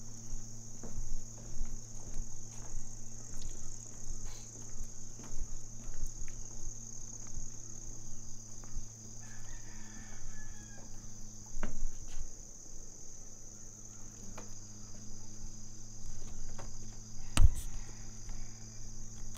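Steady, high-pitched chorus of insects, with a low steady hum underneath and scattered faint clicks. A single sharp knock near the end is the loudest sound.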